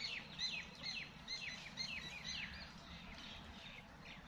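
A songbird calling repeatedly: a series of short, sharply falling chirps, about two a second, that grow fainter and sparser after about two and a half seconds.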